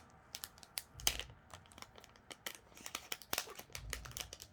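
Plastic packaging crinkling and crackling in the hands as it is worked open, with scattered sharp crackles and a couple of soft thuds.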